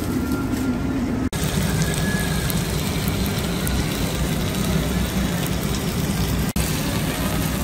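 Chicken shawarma wrap sizzling in oil on a flat griddle under a metal press, a steady hiss over a low hum. The sound breaks off for an instant twice.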